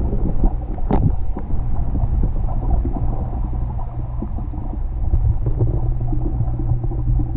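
Muffled low rumble of pool water heard through a camera held underwater, with a brief knock about a second in.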